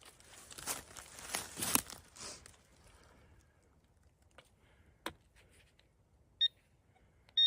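Crunching and rustling in leaf litter and soil for about two seconds, then a few faint clicks. Near the end, two short electronic beeps about a second apart from a metal-detecting pinpointer being switched on.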